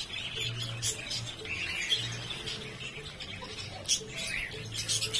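Caged birds chirping and squawking over and over, with the light rustle and patter of canary seed being poured from a plastic bag into a plastic tub.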